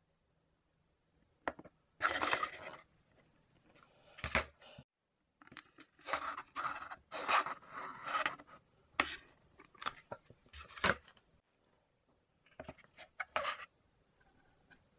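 Hot Wheels toy car packaging being handled and opened: cardboard and plastic rustling and scraping in irregular bursts, with several sharp clicks and snaps in between.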